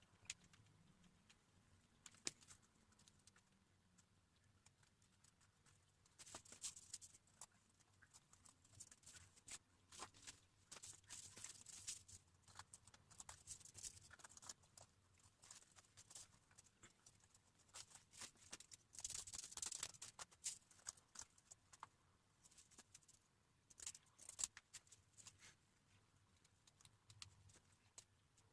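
Faint scratchy rustling and scraping of cardboard being handled and worked, in short spells, with scattered sharp clicks.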